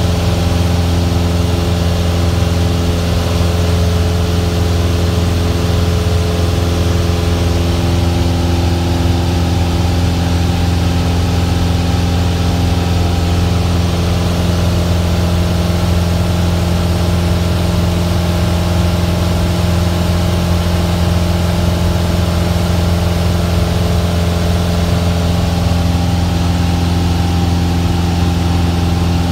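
Single-engine Cessna's piston engine and propeller running at steady cruise power, heard from inside the cabin as a constant low drone with a hum of steady tones over wind and engine noise.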